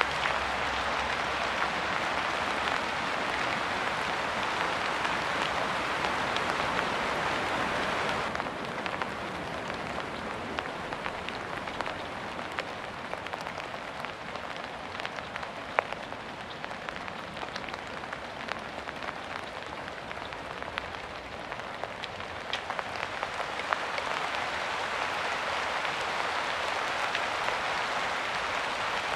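Steady rain falling, with single drops ticking sharply now and then. The rain eases a little about eight seconds in and picks up again near the end.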